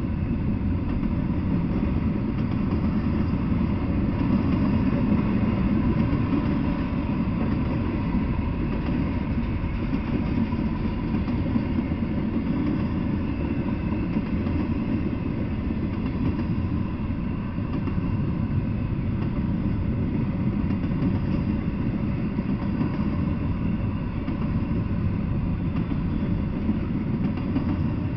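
Double-stack intermodal freight train rolling past, a steady low rumble of its wheels on the rails.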